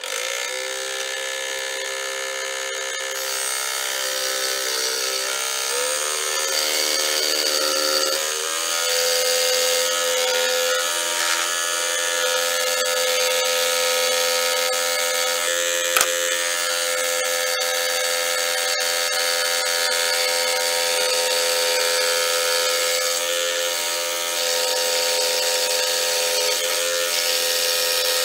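Electric scroll saw starting up and running with a steady hum while it cuts the waste from around a carved wooden plaque. Its pitch shifts a few times in the first eight seconds before settling, and a single sharp click comes about 16 seconds in.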